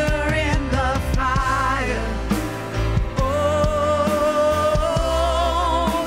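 Live worship band playing a slow song: drums, bass, electric guitars and keyboard, with singers holding long notes.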